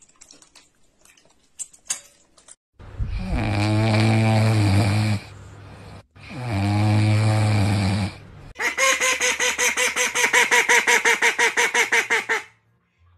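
French bulldog puppy snoring in its sleep: two long, loud snores. Then a duck quacking in a fast run of about seven quacks a second for nearly four seconds.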